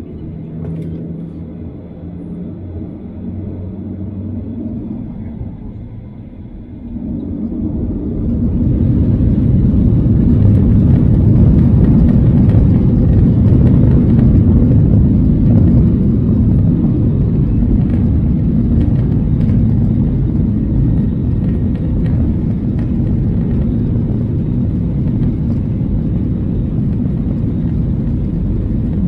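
Boeing 737-900ER jet engines heard from inside the cabin: a low hum at low thrust, then about seven seconds in the engines spool up to takeoff thrust. A loud, steady rumble builds over a couple of seconds and holds through the takeoff roll.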